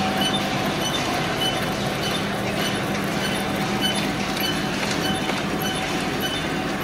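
Automatic bouillon cube wrapping machine line running: a steady hum under dense mechanical clatter, with a short high chirp repeating about one and a half times a second.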